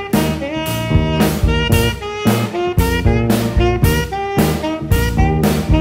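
Jazz big band playing, a saxophone soloing over the rhythm section, with the drum kit keeping a steady beat of about two strokes a second.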